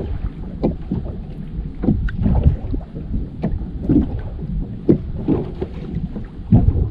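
Wind buffeting the microphone over a choppy sea, with small waves slapping against the kayak's hull in irregular splashes.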